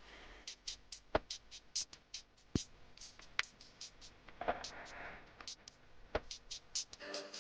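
Irregular sharp clicks and taps, several a second: small metal repair tools working against a smartwatch's case and parts.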